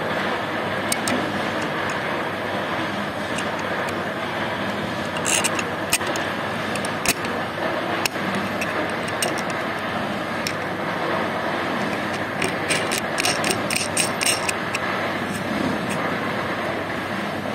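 Small sharp metallic clicks and taps as a threaded bolt and a black steel bracket are handled against a wooden easel frame, a few around five seconds in and a quick run of them later. Under them is a steady background rumble.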